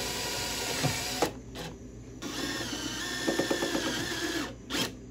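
Cordless drill running in two bursts. The first stops about a second in; the second starts after two seconds, drops in pitch partway through and stops near the end.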